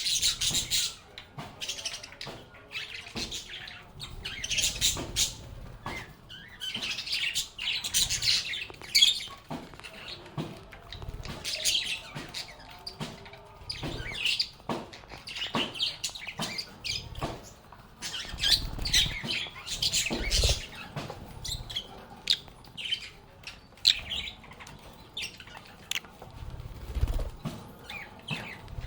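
A flock of pet lovebirds chirping and chattering in short shrill bursts again and again, with small clicks and a few low thumps between the calls.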